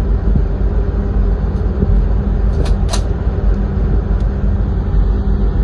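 Steady low rumble and hum of a container ship's machinery under way, mixed with wind buffeting the microphone. Two short sharp sounds come about two and a half to three seconds in.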